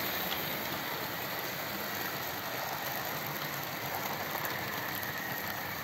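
OO gauge model train running along the layout track: a steady mechanical rattle of wheels on rails with a faint steady whine and small clicks.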